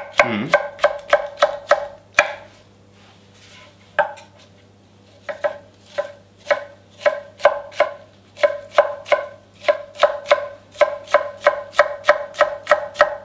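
Chef's knife dicing a red bell pepper on an end-grain wooden cutting board: a quick, even run of blade knocks on the wood, about two to three a second. The knocks stop for about three seconds after about two seconds, with one stroke in the pause, then start again.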